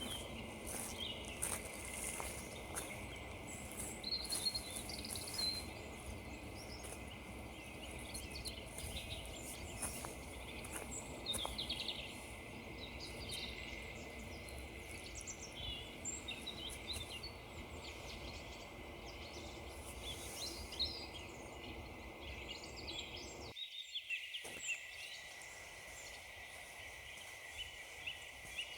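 Small songbirds chirping and singing in short repeated calls, over soft crunching footsteps on frozen woodland ground. A low background rumble drops away abruptly about three-quarters of the way through while the birdsong carries on.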